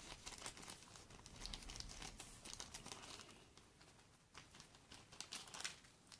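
Faint scratching and small irregular clicks of a spudger prying and working at the small parts of an S3 phone during a flex-cable repair, coming in uneven clusters.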